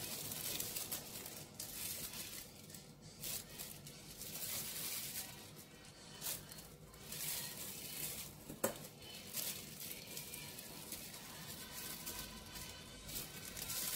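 Fresh mint leaves being torn and dropped onto sliced shallots in an aluminium pot: soft tearing and rustling in short bursts, with one sharp click a little past halfway.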